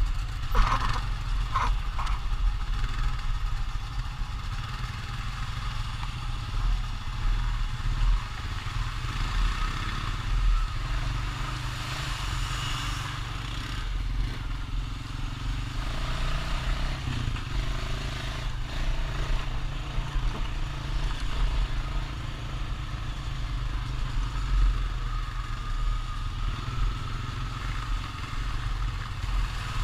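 ATV engine running at a fairly steady level with a deep low rumble, with no big revs.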